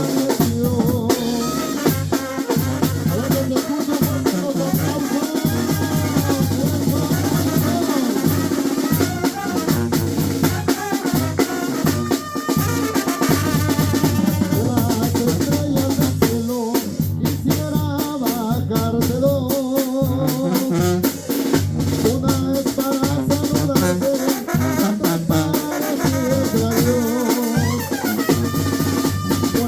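Tamborazo band playing live: brass melody over a steady beat on the tambora bass drum and snare drum.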